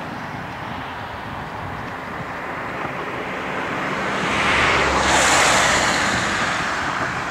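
A vehicle passing on a nearby road: a swelling whoosh of tyre and engine noise that peaks about five seconds in and then fades, over a steady outdoor hiss.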